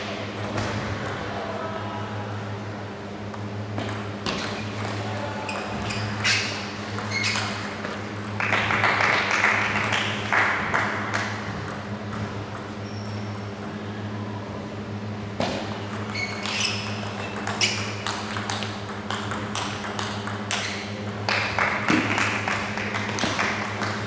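Table tennis rallies: the ball is struck back and forth by paddles and bounces on the table in quick sharp clicks, in two runs with a pause between them about halfway through. A steady low hum runs underneath.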